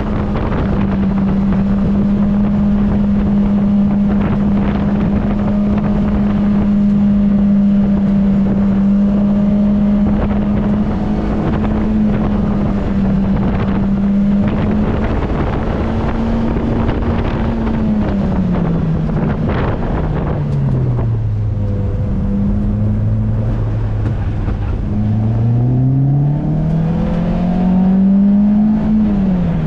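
A 2005 Lotus Elise's engine heard from inside the cabin while it is driven hard on an autocross course. The engine holds a steady high pitch for over half the run, then the revs fall away, stay low for a few seconds, climb again and drop off near the end, over a steady rush of road and wind noise.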